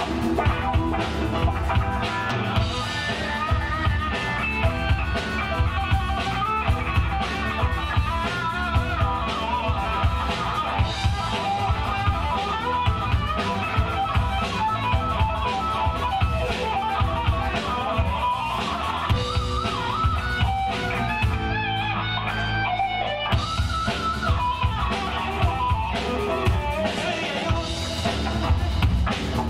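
Live blues-rock band playing an instrumental passage of a funk-blues song: an electric guitar lead with wavering, bent notes over a drum kit and rhythm guitar. About two thirds of the way through, the cymbals drop out for a couple of seconds.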